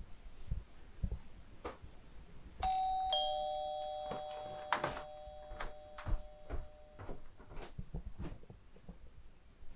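Two-note doorbell chime: a higher 'ding' followed half a second later by a lower 'dong', both ringing out slowly for about four seconds. Scattered light taps and knocks are heard around it.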